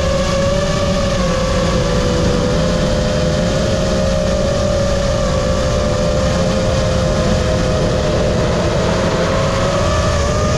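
FPV drone's electric motors and propellers whining steadily in flight, the pitch dipping slightly now and then with throttle, over a rush of wind on the onboard GoPro's microphone.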